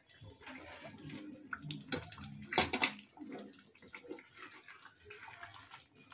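Wooden spatula stirring and turning chicken pieces in thick gravy in a metal pot: wet squelching and sloshing, with a few knocks of the spatula against the pot, the loudest about two and a half seconds in.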